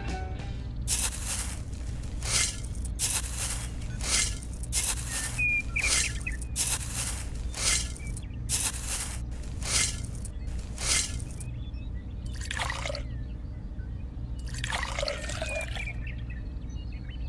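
Dry sand and cement scooped with a tiny toy shovel and tipped into a miniature mixer drum: a quick run of short gritty rustles, one every half second or so, then two longer pours later on. A steady low hum runs underneath.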